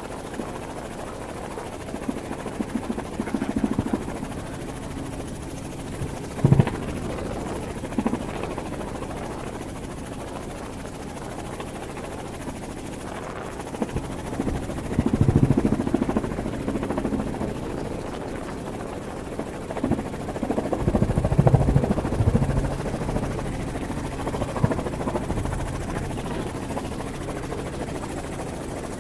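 Helicopter engine and rotor running in flight, heard from inside the cabin: a steady low drone that swells louder several times.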